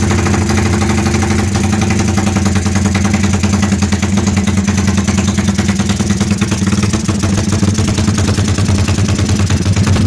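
Honda Tiger's single-cylinder engine idling through a BSS aftermarket exhaust, a loud, steady, rapid chopping beat of the kind called a 'helicopter' exhaust sound.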